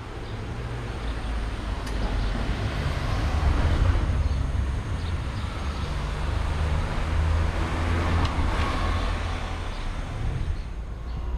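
Street traffic: cars driving past with a low engine rumble and tyre noise, swelling about four seconds in and again around eight to nine seconds.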